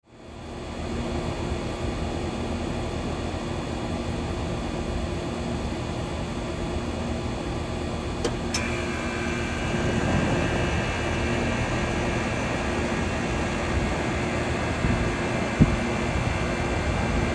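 Air conditioner condensing units running, a steady fan noise with a low hum. About eight seconds in there is a sharp click, and a new higher steady whine joins as the 2007 Luxaire Climasure starts up with its Bristol reciprocating compressor, the sound growing a little louder.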